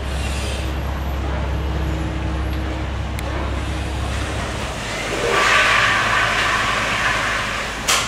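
Outdoor machinery noise: a steady low engine hum that drops away a little under five seconds in. A swell of rushing noise follows, rising and fading over about two seconds, like a vehicle passing.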